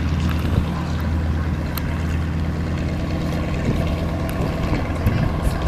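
Piston aircraft engine running with a steady low drone.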